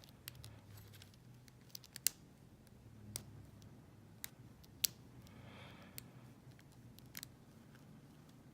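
Lock picking in a Best padlock's core: scattered, irregular sharp metallic clicks, about nine, as the pick and tension wrench work the pins.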